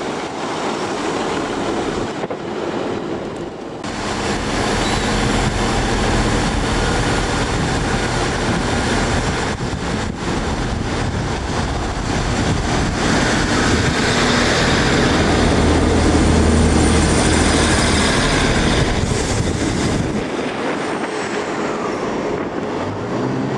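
Class 150 diesel multiple units moving along the platform: diesel engines running under power over rumbling wheel and rail noise. It comes in short takes joined by abrupt cuts, the longest and loudest running from about 4 to 20 seconds in. Near the end a fresh engine note starts as another unit approaches.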